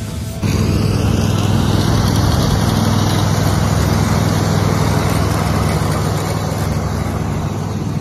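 Riding lawn mower with a rear grass-sweeper attachment, its engine running steadily. The sound cuts in suddenly about half a second in and eases slightly near the end as the mower drives off.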